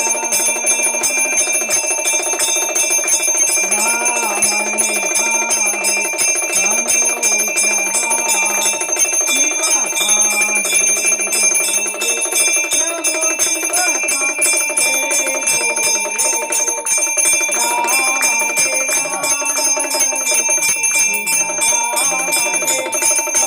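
Bells ringing rapidly and continuously, with a voice faintly rising and falling beneath them.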